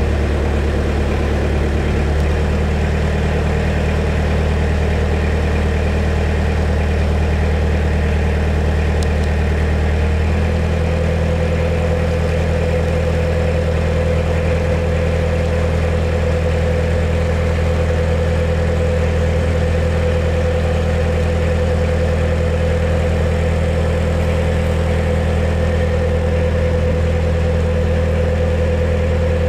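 A narrowboat's diesel engine running steadily as the boat cruises. Its note changes slightly about two seconds in, and again about ten seconds in, when a higher hum joins it.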